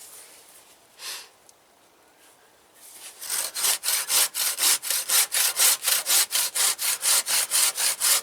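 Hand saw cutting through a log with quick, even back-and-forth strokes, about four a second, starting about three seconds in; the log's end is being cut into a point. A brief rustle comes about a second in.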